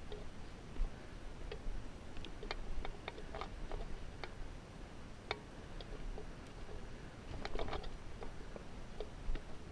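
Irregular sharp clicks and knocks over a low, muffled rumble: a dirt bike crawling over rocks, picked up by the rider's helmet camera.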